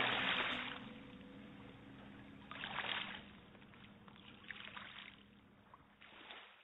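Sea waves washing in, four soft surges a couple of seconds apart, over a faint held note as the music dies away.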